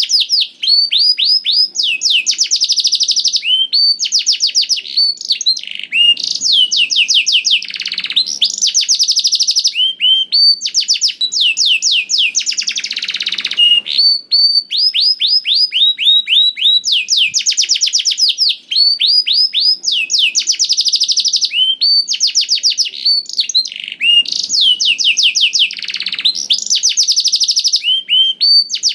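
Domestic canary singing a long, unbroken song, the lively non-stop singing sought from a 'gacor' bird. The song is made of rapid runs of repeated high falling notes, each run lasting a second or two, with a few fuller, rolling phrases in between.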